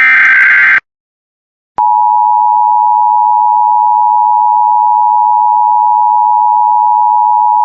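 Emergency Alert System signal for a Child Abduction Emergency (Amber Alert): the last SAME header data burst, a harsh digital warble, cuts off just under a second in. After about a second of silence the steady two-tone EAS attention signal (853 and 960 Hz) sounds at full loudness.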